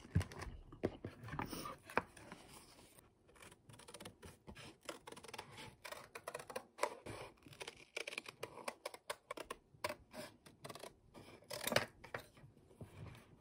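Irregular crisp snipping, scratching and rustling, many short strokes close together, as of something being cut or handled by hand.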